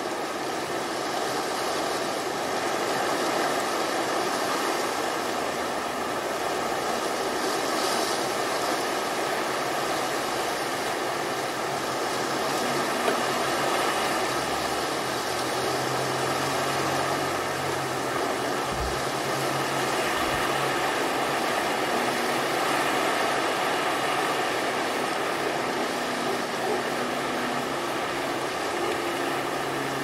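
Steady wash of ocean surf breaking on a beach, swelling and easing only gently. A faint low hum comes in around the middle and again near the end.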